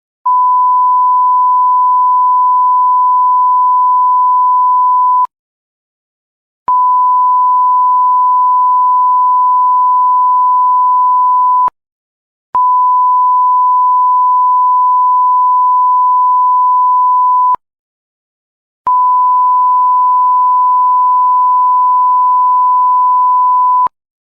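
Censor bleep: a steady 1 kHz sine-wave tone sounded four times, each lasting about five seconds, with short silent gaps and slight clicks where it switches on and off.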